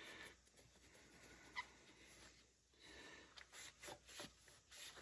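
Faint handling noise from cleaning a hydraulic valve lifter: light rubbing, a sharp click about a second and a half in, and a few small clicks near the end.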